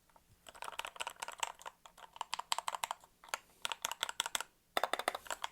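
Keys of a computer keyboard being typed on in quick runs of clicks, starting about half a second in, with two short pauses and a fast burst near the end, played to show how the keyboard sounds.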